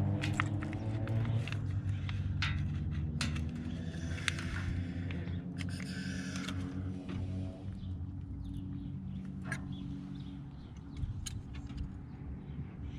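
Small metal parts handled by hand: bolts, washers and a fog-light bracket clicking and clinking, with a brief scrape partway through, over a steady low hum.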